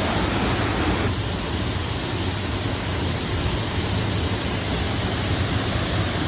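Waterfall rushing: a loud, steady roar of falling water, changing slightly about a second in.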